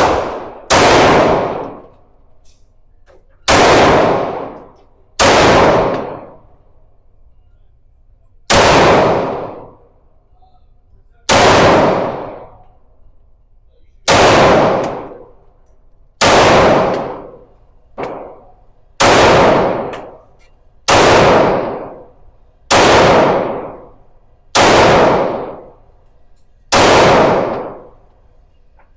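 Gunshots fired one at a time at a slow, steady pace, about thirteen in all, each followed by a long echoing decay. One shot about two-thirds of the way through is fainter than the rest.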